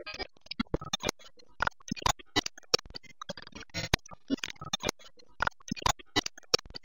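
Irregular clicks and crackles, many to the second, with short scraps of sound between them. The sound is thin, cut off in the upper treble, as heard through video-call audio.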